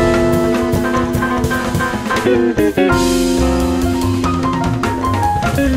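Smooth contemporary jazz instrumental: held chords over bass and drums, the chord changing about halfway through.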